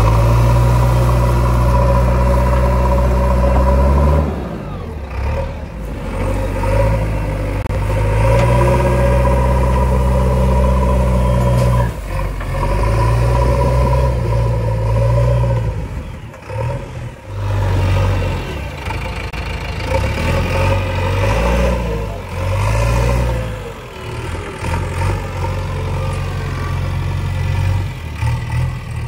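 JCB 3DX backhoe loader's four-cylinder diesel engine working under load, its revs rising and falling several times as the front loader bucket scrapes and pushes soil and lifts.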